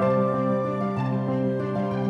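Background music: slow, gentle instrumental with sustained notes and a soft melody.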